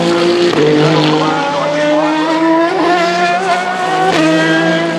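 Hypercar-class endurance race car engine at full throttle, its pitch climbing and then dropping sharply at upshifts, about half a second in and again just after four seconds.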